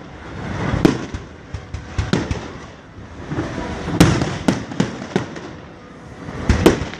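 Fireworks exploding: a run of sharp bangs with smaller crackling pops between them. The loudest bangs come about a second in, about four seconds in and near the end.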